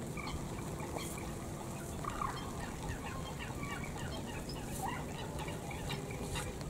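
Many quick bird chirps, each short and falling in pitch, repeating and overlapping throughout, over steady rain noise.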